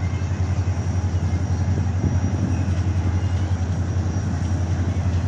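Steady low drone of a distant approaching HGMU-30 diesel-electric locomotive.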